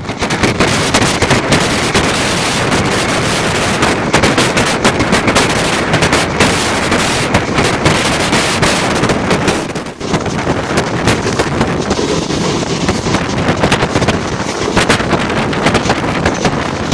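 Strong wind buffeting the microphone from a moving train, mixed with the train's running noise and dense crackling. There is a brief lull about ten seconds in.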